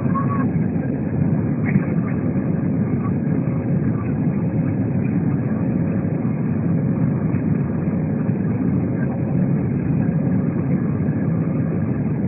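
Steady low rumble of an Airbus A320's engines and airflow heard inside the cabin, with a faint steady hum running through it.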